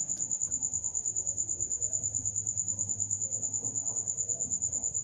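Cricket chirping: a steady, rapidly pulsing high trill.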